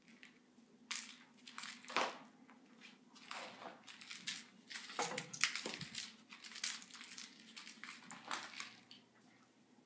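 A cat's paws and a toy mouse on a string scuffing and skittering over a wooden parquet floor: an irregular run of scratchy, rustling scrapes that comes in quick flurries.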